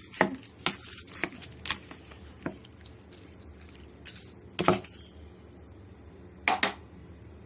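A spoon mixing curd rice in a bowl, with irregular clinks and knocks of the spoon against the bowl. The loudest knocks come a little past halfway and again near the end.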